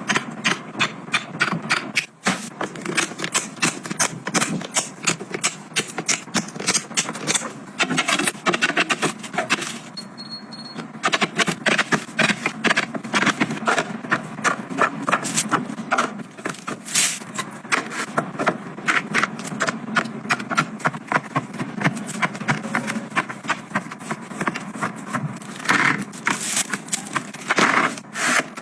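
Household items being handled and set down: a busy, uneven run of clicks, taps and light knocks with some scraping.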